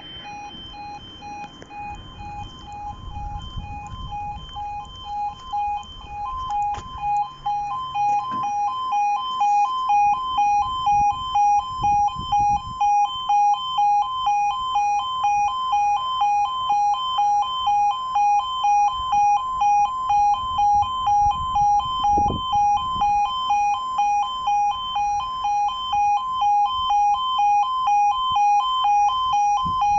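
Level crossing warning alarm sounding while the barriers are down for an approaching train: a steady two-note electronic tone pulsing about twice a second. It grows louder over the first ten seconds or so, with some low rumbling and a few knocks underneath.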